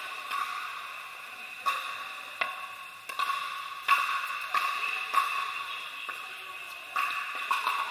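Pickleball paddles hitting plastic pickleballs in rallies: sharp hollow pocks at irregular intervals, about one every half second to a second, echoing in a large hall over a steady high-pitched hum.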